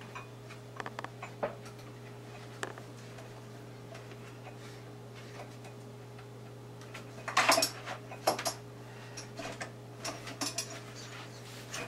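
Cutting boards and kitchenware knocking and clicking as they are moved about, with a louder clatter about seven and a half seconds in. A steady low hum runs underneath.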